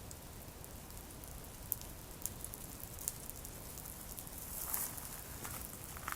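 Campfire crackling: scattered sharp pops and snaps of burning wood, with a brief denser flurry of crackles near the end.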